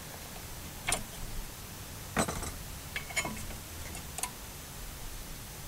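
Rear brake pads being pulled out of the caliper mounting bracket: four sharp clicks, about a second apart.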